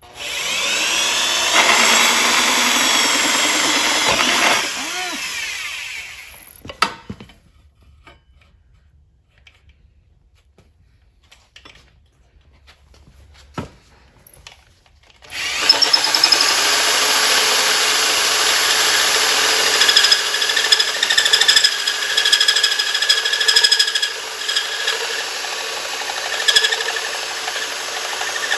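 Electric drill spinning a hole saw that is pressed hard into the work. It spins up and cuts for about five seconds, then winds down. After a quiet pause with a few knocks, it starts again about fifteen seconds in and cuts steadily to the end.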